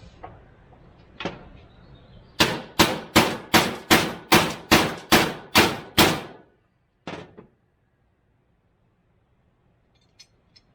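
Hammer blows on metal: about eleven sharp strikes in a steady rhythm, roughly two and a half a second, each with a short metallic ring, then two lighter knocks. A tight-fitting part of the truck's column shift linkage is being driven on by hammering.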